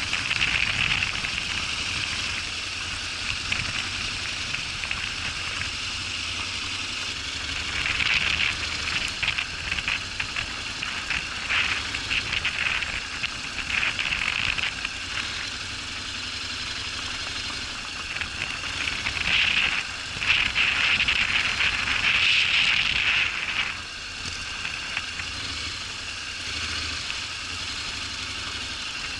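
Honda NC750X motorcycle riding over rough dirt and gravel: crackling, rattling tyre and chassis noise, louder in two long stretches, with a faint low engine hum underneath.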